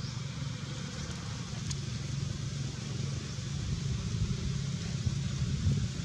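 Steady low engine hum, like a motor vehicle running, under a steady high hiss.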